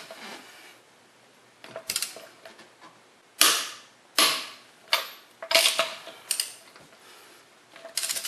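Half-inch click-type torque wrench set to 90 ft-lb snapping with sharp metallic clicks as wheel lug nuts reach torque, one after another. Lighter clinking clusters come between them as the socket goes onto the next lug nut.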